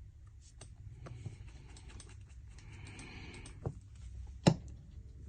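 Light taps and clicks of small objects being handled on a hard surface, with a brief rustle, then one sharp knock about four and a half seconds in.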